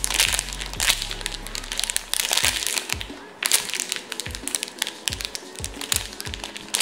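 Clear plastic bag crinkling and crackling as a foam squishy toy is squeezed and turned inside it, over background music with a steady beat that comes in about two and a half seconds in.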